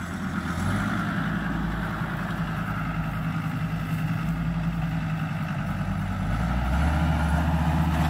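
Diesel farm tractor engine running steadily, growing louder near the end as the tractor drives closer.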